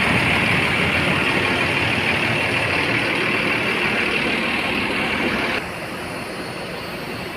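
Mercedes-Benz OH 1526 bus diesel engine idling steadily, with a loud high hiss over it. About five and a half seconds in, the hiss cuts off suddenly and the sound drops to a quieter, lower steady idle.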